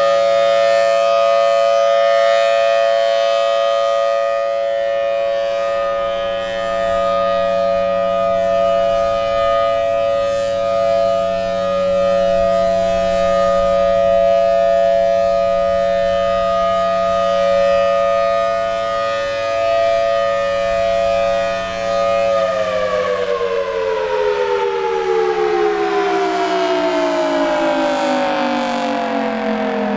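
Federal Signal Thunderbolt 1003 outdoor warning siren sounding its steady alert tone, swelling and fading gently as its rotator turns. About 22 seconds in the blower is cut and the siren winds down, its pitch falling steadily.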